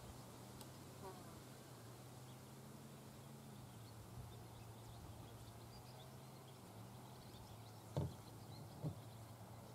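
Faint, steady buzzing of insects, with two short soft thumps about eight and nine seconds in.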